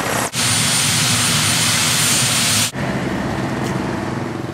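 Large transport helicopter taking off at close range: a loud, steady rush of rotor wash and turbine noise over a low throbbing hum. A little under three seconds in it cuts off abruptly, and a quieter, lower engine sound goes on until near the end.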